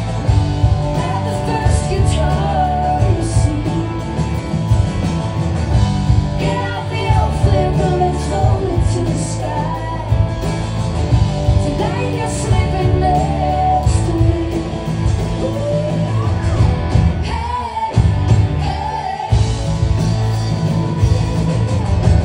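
Live rock band playing, with electric guitars, bass, keyboards and drums under a woman singing the lead. The band cuts out briefly twice near the end.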